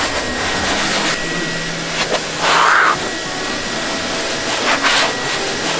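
Pet blow dryer blowing a steady, loud rush of air through its hose and nozzle onto a wet dog's coat, briefly louder about two and a half seconds in.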